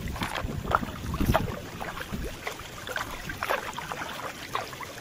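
Kayak paddle blades dipping into calm river water on each stroke, with irregular splashes and drips. A low rumble fades out after about the first two seconds.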